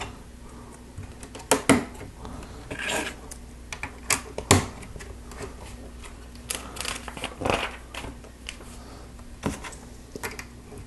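Small plastic Lego pieces clicking and clacking as they are handled and pressed together, about a dozen irregular sharp clicks with some rustling between them.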